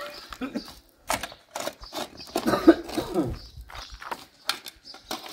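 Steel shovel digging into stony soil: a series of sharp scrapes and clinks as the blade bites into earth and stones. About halfway through there is a short vocal sound.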